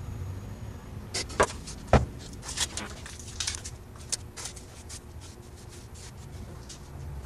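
A run of light clicks and knocks from things being handled, with two sharper knocks about half a second apart near the start, over a low steady hum.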